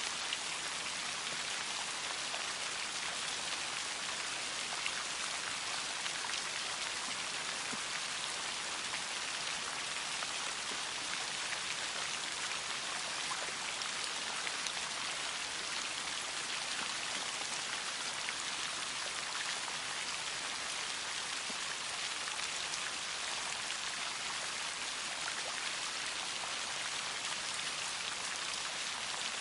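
Steady rain falling, an even hiss dotted with many small drop ticks, unchanging throughout.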